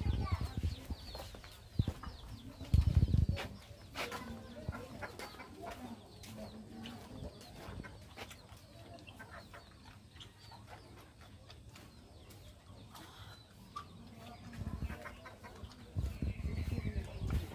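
Birds calling in the background, with scattered short ticks and a few brief low rumbles.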